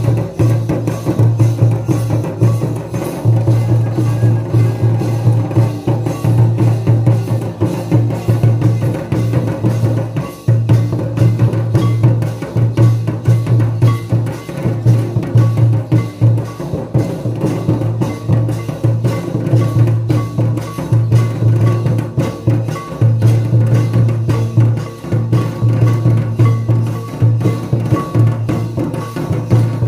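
Santali traditional Karam dance music: several large hand drums beaten in a fast, steady rhythm over a deep sustained tone that drops out and comes back every second or so.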